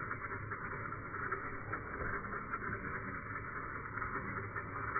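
RC rock crawler wading through a shallow stream, its tyres churning and splashing the water in a steady rushing noise. The sound is thin and muffled, with no high end.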